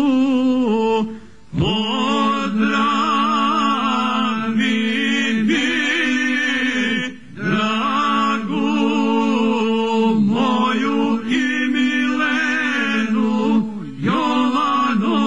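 Men's voices singing a traditional Krajina song a cappella: a lead voice carries a wavering melody over a held lower part. The singing breaks off briefly three times for breaths, about a second and a half in, around seven seconds and just before the end.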